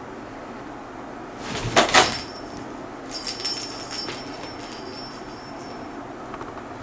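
Cat playing with a small plastic bell ball toy: a sudden scuffling rattle about a second and a half in, then the bell jingling in a quick run of rattles as the ball rolls away.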